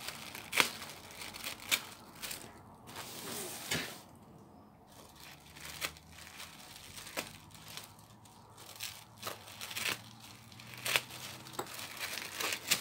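Thin tissue paper crinkling and tearing as sticky tape is picked and peeled off a tissue-wrapped parcel, in short irregular crackles.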